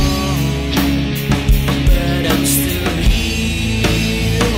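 Background music: a song with a steady drum beat under sustained instruments.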